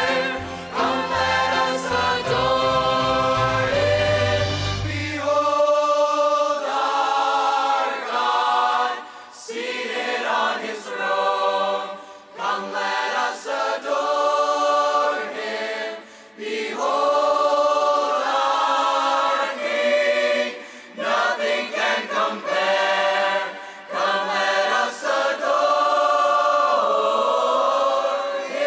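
Mixed choir singing a hymn in full harmony. A low accompaniment under the voices stops about five seconds in, leaving mostly the choir.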